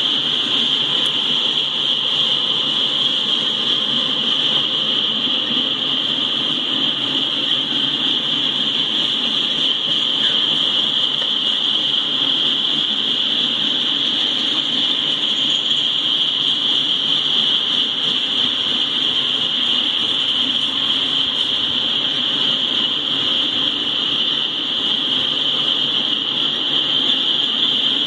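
Freight train of tank cars rolling past steadily, the low rumble of wheels on rail under a continuous high-pitched hiss.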